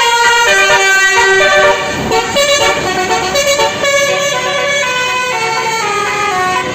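Basuri telolet bus horn playing a quick melody: a run of short, stepped musical notes, sometimes two at once, each held for a fraction of a second.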